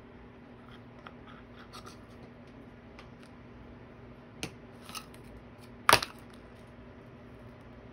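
Small clicks and taps of craft supplies being handled on a cutting mat, with one sharp knock about six seconds in as something is put down, over a faint steady hum.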